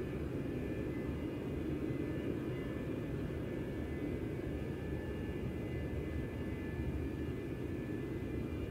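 Jet airliner engines heard from across an airfield as it lands and rolls out: a steady low rumble with a faint high whine over it.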